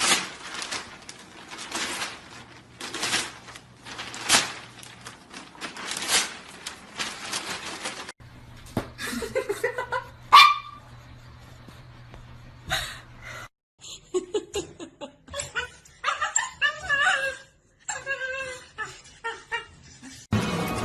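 A dog barking and whining, with people laughing.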